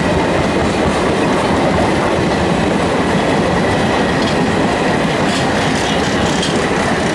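An express train of blue sleeper coaches passing close by on the adjacent track, its wheels running loud and steady over the rails. It is heard from alongside another train, an EMU local.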